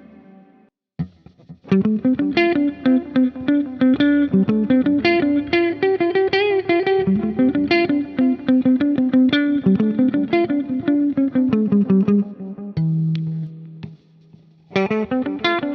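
1997 Korean-made Epiphone Les Paul electric guitar played through an amp simulator with a compressor. After a short pause it plays a quick run of single picked notes, with one bent, wavering note midway. Then it holds a low note, drops away briefly, and starts playing again near the end.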